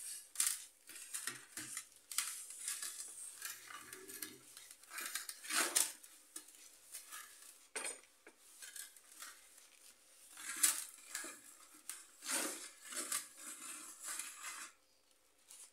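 Paper napkin rubbing butter over an aluminium baking tray to grease it: irregular swishing wiping strokes, some louder than others, with faint knocks of the metal tray.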